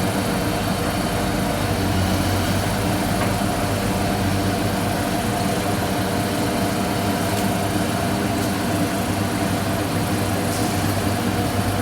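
Diesel engine of a Caterpillar excavator running at a steady pitch, a continuous engine hum.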